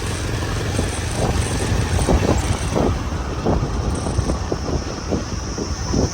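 Motorbike running during a ride, with wind rumbling on the microphone and irregular knocks, as over a rough road.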